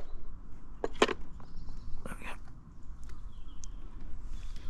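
A few sharp clicks and knocks of small fishing tackle being handled while a float rig is set up, scattered over the first couple of seconds.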